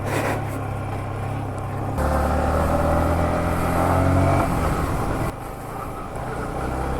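Yamaha MT-15's single-cylinder engine running; it picks up in pitch and level about two seconds in, holds, then eases back around five seconds in.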